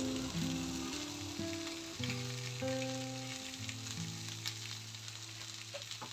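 Chicken and green beans sizzling and crackling in a hot pan, with scattered pops, under soft background music of held notes and chords.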